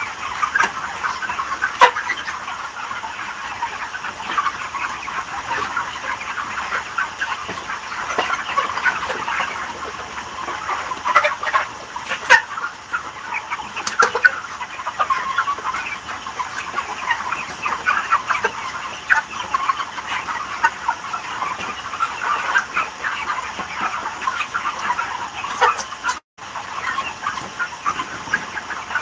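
A large flock of chickens clucking and calling all at once, many overlapping short calls. A few sharp clicks cut through, and the sound drops out completely for a moment a few seconds before the end.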